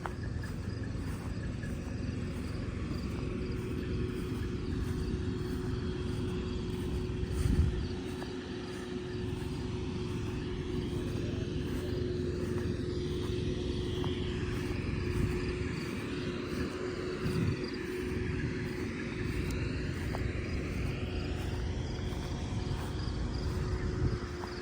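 An engine running steadily: a low rumble under a constant hum, with a couple of brief louder bumps.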